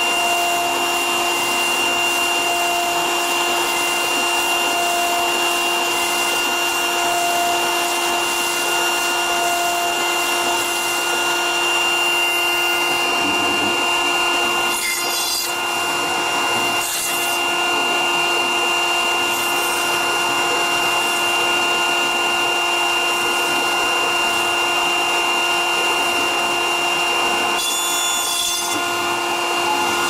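CNC router spindle running with a steady whine of several fixed tones while its extra-long 4 mm-radius ball-nose cutter mills Styrodur (extruded polystyrene foam), giving a continuous rasping hiss. The cutting noise dips briefly twice about halfway through.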